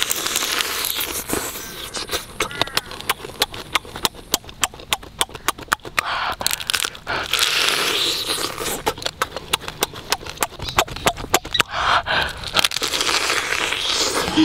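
Close eating sounds of a man feeding on a cooked crab by mouth: wet sucking and slurping at the roe inside the shell, with quick clicking smacks and crunches.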